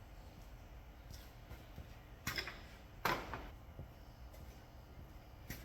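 Two short knocks about a second apart, each dying away quickly, over quiet room tone.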